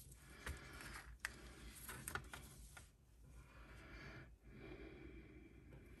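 Near silence: faint room hiss with a few soft clicks in the first two seconds.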